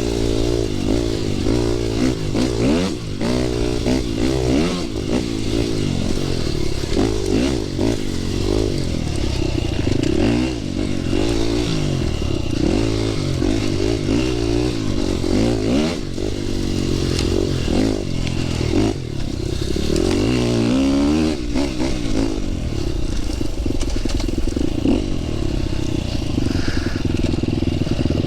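Dirt bike engine revving up and down repeatedly as it is ridden over a rough trail section, with clatter and knocks from the bike over the bumps.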